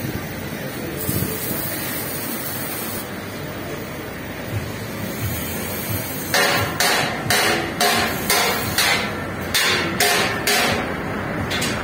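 A hammer striking metal, about a dozen ringing blows at roughly two to three a second, starting about six seconds in over the steady background noise of the workshop yard.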